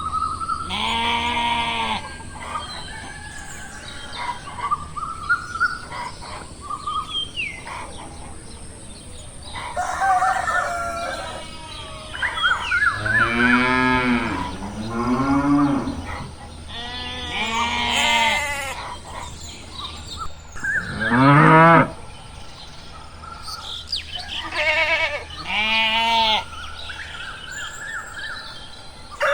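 Cattle mooing, about six calls spread through the stretch, some sliding down in pitch, with faint bird chirps in the gaps between them.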